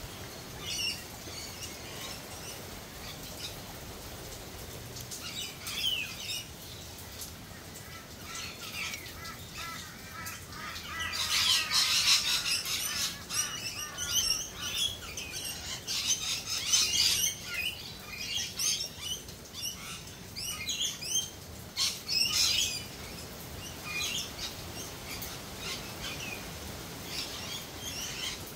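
Several birds chirping and calling, with a loud burst of rapid chattering calls about halfway through and more calls a few seconds later, over a faint steady background hiss.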